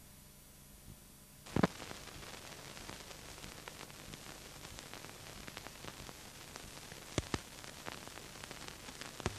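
Hiss and crackle from an old film's soundtrack, with no programme sound yet. A faint hiss grows louder about a second and a half in, with scattered clicks and pops, the strongest just after that and around seven seconds in.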